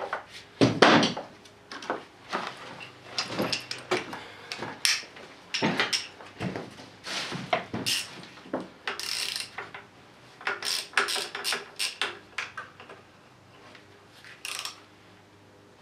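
Socket ratchet clicking in short runs, with irregular clinks and clatters of metal tools and parts, as bolts are worked loose by hand.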